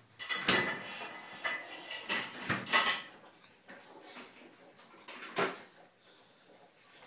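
Dishes and cutlery clinking and knocking at a dinner table, a cluster of clinks over the first three seconds and one more about five and a half seconds in.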